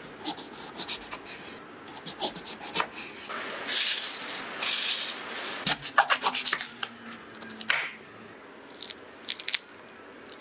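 Kitchen knife cutting on a wooden chopping board: quick slicing strokes and taps through a lemon, then the blade cutting through a passion fruit's rind, with a few soft clicks near the end.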